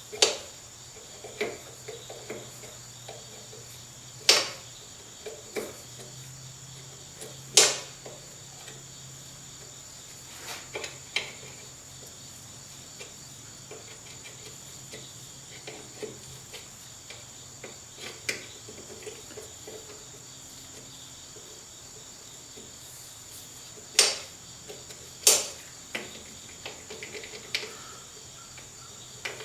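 Occasional sharp metallic clinks and knocks of hand tools, a wrench and ratchet, on bolts and fittings, spaced irregularly over a steady high-pitched whine.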